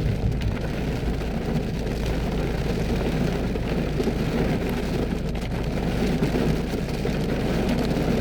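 Heavy rain coming down hard, a steady dense patter over a constant low rumble.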